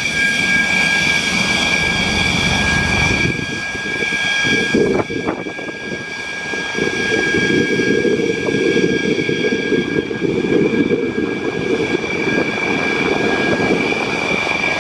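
Dassault Rafale's twin turbofan jet engines running at taxi power: a steady, loud, high-pitched turbine whine made of several tones over a low rumble. The rumble changes about five seconds in.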